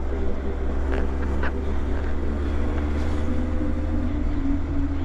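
Honda CB1300's inline-four engine running steadily while the motorcycle cruises, with wind noise on the microphone. The engine note eases down slightly about four seconds in.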